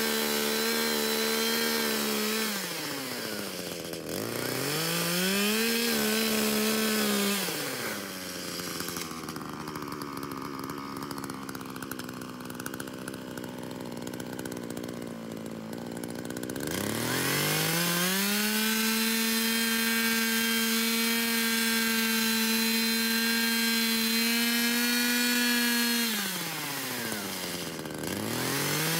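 Gas chainsaw ripping lengthwise through a log at high revs. The engine note dips and climbs back a few times, and runs lower and quieter for several seconds in the middle before rising to full speed again.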